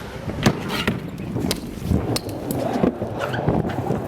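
BMX bike rolling on hard ground, its tyres giving a steady rumble, with several sharp clicks and knocks.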